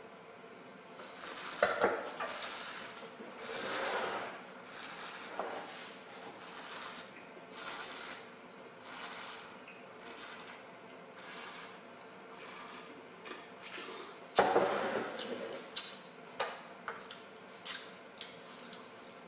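Wine taster slurping air through a mouthful of red wine to aerate it on the palate: a run of short airy slurps about once a second. About two-thirds through comes a longer, louder airy rush, followed by a few small clicks.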